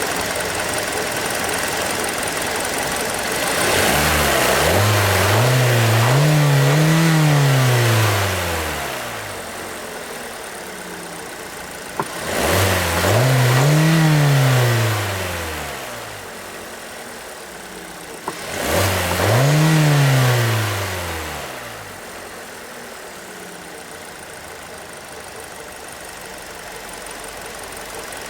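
2017 Hyundai Elantra's 2.0-litre four-cylinder petrol engine idling and being revved three times: a double blip about 4 seconds in, then two single revs, each rising and falling back to a steady idle.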